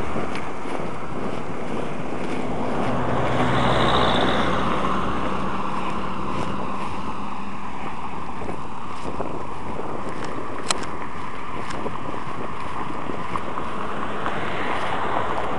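Steady vehicle and wind noise that swells about four seconds in, with a low engine hum under it, and swells again near the end; a single sharp click a little over ten seconds in.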